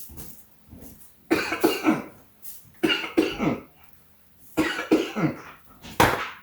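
A person coughing hard in three bouts about a second apart, then one sharp cough near the end. The coughing is brought on by airborne dust from spicy Creole seasoning being shaken over a turkey.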